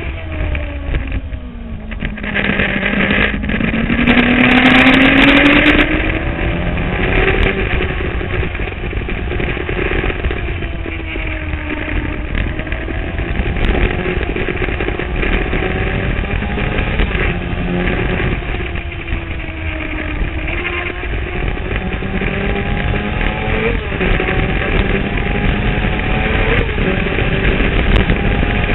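Sport motorcycle engine heard from a camera on the fuel tank, ridden on the road: its pitch climbs and drops again and again as it pulls through the gears. Wind rushes over the microphone, loudest about four to six seconds in.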